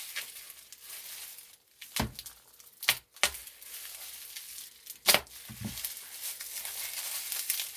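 Plastic bubble wrap crinkling and tearing as it is sawn open with a dull folding pocketknife. Several sharp snaps come through the rustle, the loudest about two, three and five seconds in.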